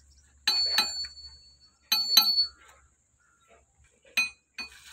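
A metal tool strikes the hub of a log truck's rear wheel, giving sharp ringing clinks, mostly in pairs about every two seconds. This is work on the broken rear axle.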